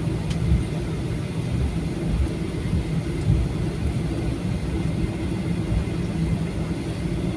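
Boeing 737-800 taxiing, heard from inside the passenger cabin: a steady low rumble of the CFM56 engines at taxi power and the wheels rolling over the taxiway.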